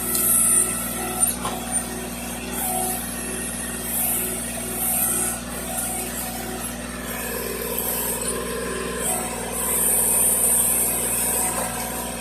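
Tractor engine running steadily, with a regular pulsing beat about twice a second.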